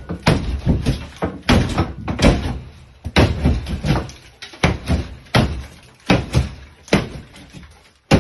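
A steel plaster hook chopping into a sheetrock wall: about ten sharp blows in a steady rhythm, each one cutting and breaking the gypsum board.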